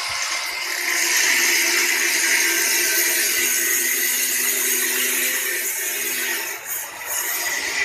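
Handheld angle grinder with a cut-off disc cutting through a 304 stainless steel rod: a steady, high grinding hiss over the motor's hum. Near the end it eases off briefly, then bites again.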